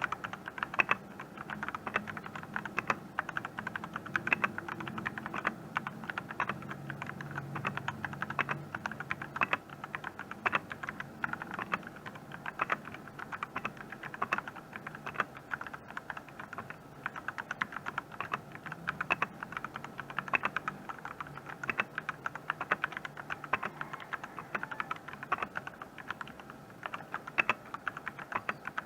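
Fast, continuous typing on an RK84 mechanical keyboard fitted with ABS double-shot MSA-profile keycaps: a steady run of key clacks with no break.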